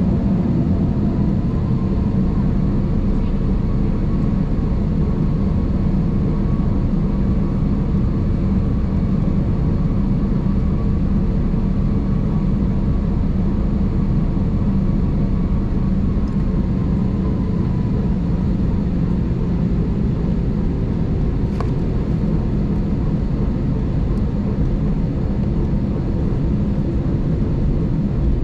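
Steady cabin rumble inside an Airbus A220 taxiing, its Pratt & Whitney PW1500G geared turbofans running at taxi power. A faint whine sits above the rumble and fades out about two-thirds of the way through, and there is a single sharp click late on.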